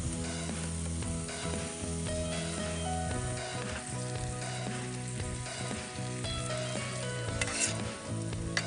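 Food sizzling as it fries in a pan, with a few sharp clicks near the end.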